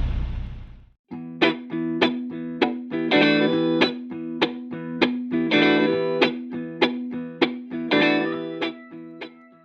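Background music: a plucked guitar line with a steady beat, starting about a second in after a steady noise fades out.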